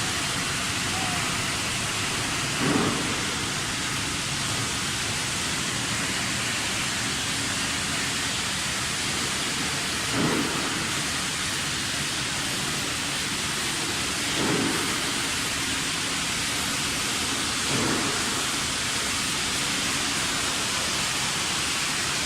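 Steady rushing air noise from running machinery, with a short dull bump four times, several seconds apart.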